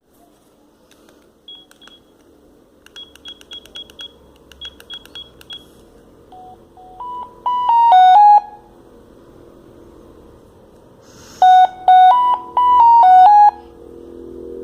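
Sagem MW 3022 mobile phone: a run of short, same-pitched high key beeps, then a ringtone melody of single electronic notes played one at a time. The melody plays twice, the second time from about 11 seconds in.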